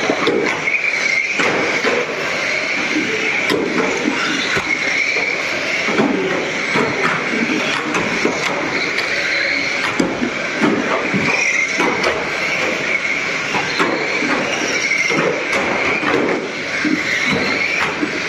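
Several small electric radio-controlled ministox cars racing together: a high motor whine that wavers up and down as they speed up and slow for the bends, with frequent sharp clicks and knocks of cars striking the barriers and each other.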